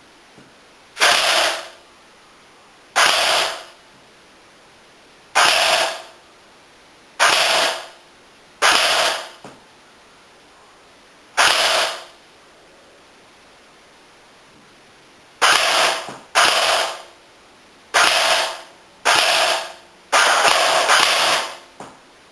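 Cybergun M14 SOCOM airsoft rifle firing about a dozen short full-auto bursts, each half a second to a second long, with pauses of one to four seconds between them; the bursts come closer together in the second half.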